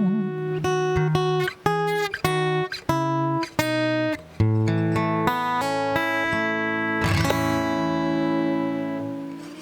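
Acoustic guitar playing the closing bars of a song: picked notes and short chords, then a final strummed chord about seven seconds in that rings out and fades away.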